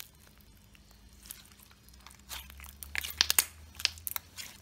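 Clear slime full of slush beads being squeezed and kneaded by hand, giving off quick clusters of crackling, popping sounds, mostly in the second half.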